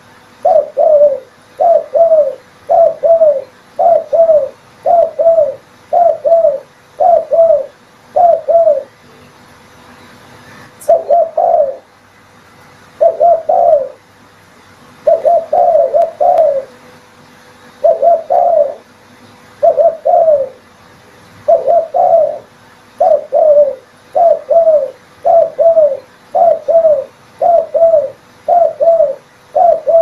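Spotted dove (tekukur) cooing, a steady run of short coo phrases at about one a second, with a break of a couple of seconds about nine seconds in.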